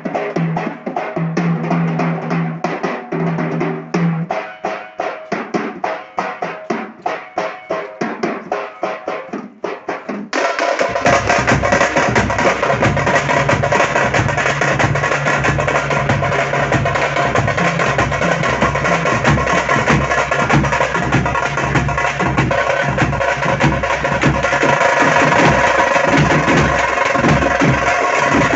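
A drum group playing a fast, even beat; about ten seconds in, the sound jumps to a louder, denser full-band texture with sustained tones over the drumming.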